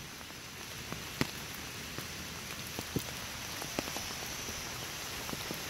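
Steady rain falling, with a few sharp ticks now and then.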